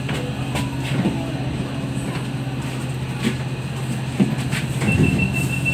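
Steady electrical hum of a train car standing at a station platform, with a few faint clicks. A steady high beep starts near the end.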